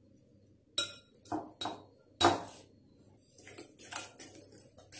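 A spoon clinking and scraping against a glass mixing bowl as butter is mixed into powdered sugar: four sharp clinks in the first half, then quicker, lighter taps near the end.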